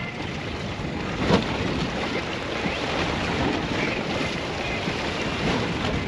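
Wind on the microphone over a steady wash of sea water, with a single sharp knock about a second in.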